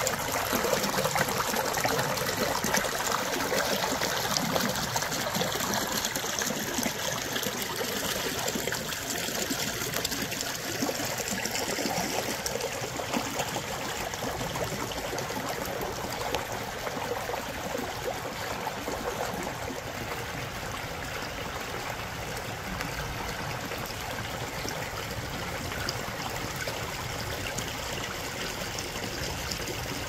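Shallow creek running over cobbles and boulders: a steady trickling, babbling flow, easing a little quieter over the first half.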